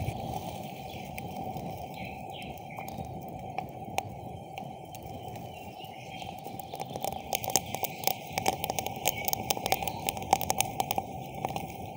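Open wood campfire burning and crackling: a steady hiss, with sharp pops and cracks that come thick and fast from about seven seconds in.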